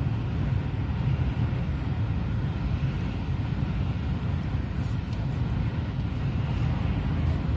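Steady low rumble inside a car's cabin while it waits in traffic with the engine idling.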